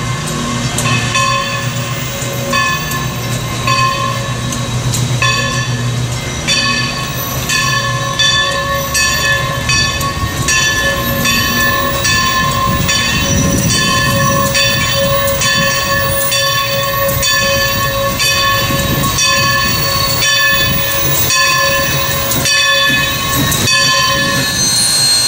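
Steam locomotive's bell ringing steadily, a strike every half second or so, as Alco 2-6-0 #11 rolls slowly into a station. Under the bell the locomotive and its cars rumble, louder in the middle as they pass close.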